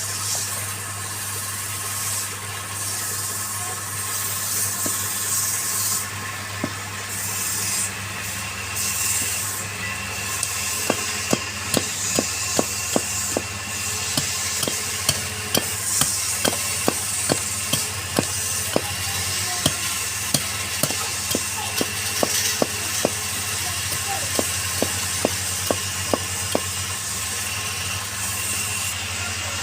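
Wood lathe motor running steadily, with the hiss of a turning tool cutting the spinning wood. From about a third of the way in there are sharp ticks roughly twice a second for most of the rest.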